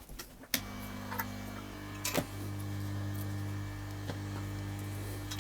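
Hot air rework blower switched on with a click about half a second in, its fan then running with a steady hum. A few sharp clicks on top.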